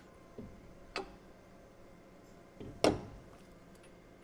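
Steel T-bolt hardware being fitted into the T-slots of a milling machine table: a few sharp metal clicks, the loudest about three seconds in.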